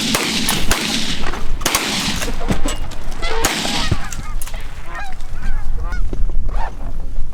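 Canada geese honking: short, repeated honks that rise and fall, several overlapping, with scattered sharp clicks among them.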